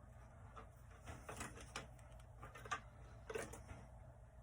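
Faint scattered clicks and taps from a multimeter and its test leads being handled while setting up a continuity check on a harness wire, over a low steady hum.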